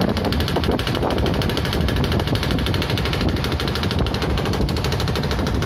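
Motorboat engine running steadily, a rapid, even putter.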